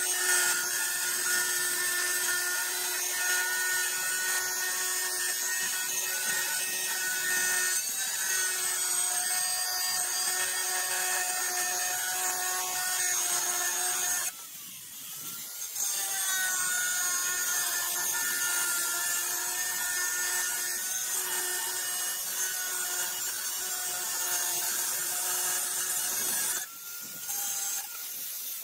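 Angle grinder with a cutting disc slicing through a ceramic tile: a steady motor whine over a gritty grinding hiss. It dips briefly about halfway, then carries on, and winds down near the end.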